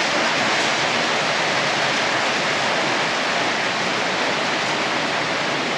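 Heavy rain on a corrugated metal shelter roof: a loud, steady, even hiss with no breaks.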